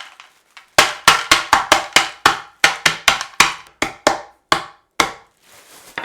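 Chocolate eggs in a bag being smashed up with about twenty hard blows in quick succession, starting about a second in and spacing out toward the end.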